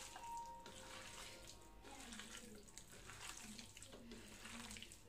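Faint wet squelching of a hand mixing chicken pieces into a thick spice-and-flour marinade in a bowl.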